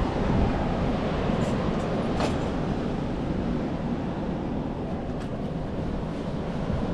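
Wind buffeting the microphone over the steady wash of ocean surf, with a few light clicks.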